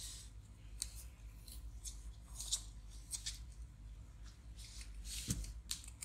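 Handling noise from an opened laptop being picked up and turned over: a string of short clicks and light scrapes, with a louder knock a little after five seconds as it is set down.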